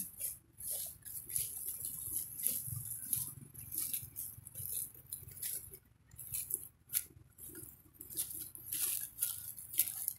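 Dry fallen leaves rustling and crackling in short irregular bursts as a macaque shifts and moves about on them.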